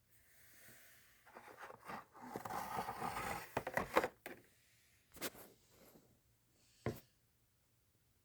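Handling noise: rustling and scraping for a few seconds, then a couple of sharp clicks.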